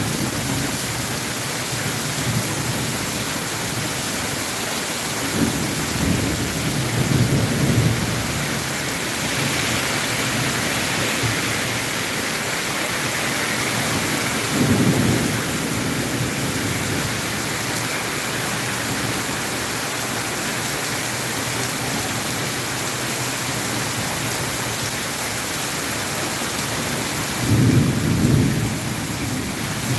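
Torrential rain pouring on a road and pavement in a dense, even hiss. Low rumbles swell up briefly a few times: about six seconds in, around fifteen seconds, and near the end.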